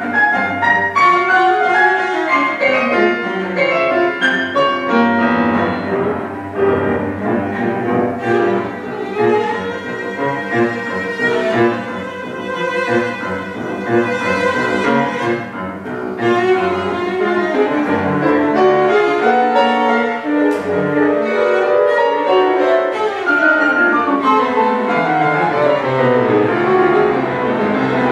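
Cello and piano playing a classical chamber piece together without a break, the cello's bowed line over busy piano figures.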